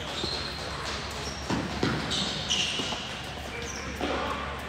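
Doubles tennis rally on an indoor hard court: racket hits and ball bounces, a handful of sharp strokes about a second or two apart. Short high squeaks come between them.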